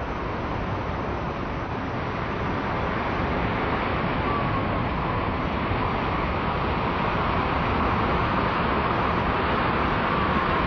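Sea animals' chattering played back in slow motion: a dense, steady wash of noise with a few faint wavering calls, one about four seconds in and another near the end.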